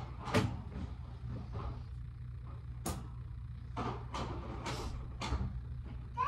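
A steady low hum under a handful of short, scattered clicks and knocks as a wire pet cage and its tray are handled.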